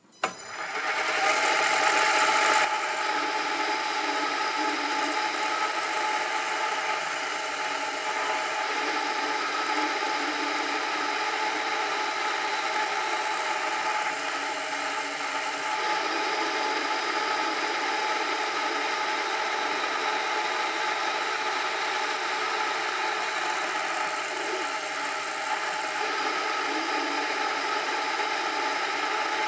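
Metal lathe starting up just after the start and then running steadily with an even mechanical hum and several steady tones, turning a con rod between centres for a taper cut.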